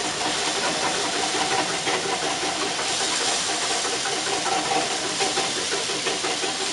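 Breakfast hash of diced potatoes sizzling steadily in a frying pan on the stove.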